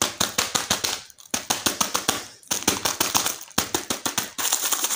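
Soft plastic wet-wipes packet crinkling and crackling in the hands as it is pressed closed, in several bursts of rapid crackles with short pauses between.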